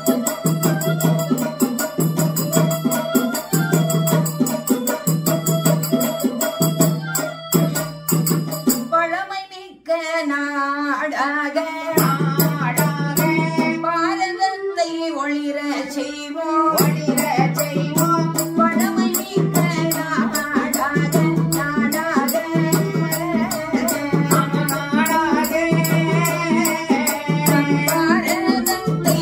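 A woman singing a Tamil folk song over backing music with a steady low beat and a fast, shaker-like rattle. The accompaniment drops out about nine seconds in, leaving her voice nearly alone, then the rattle comes back a few seconds later and the beat near the middle.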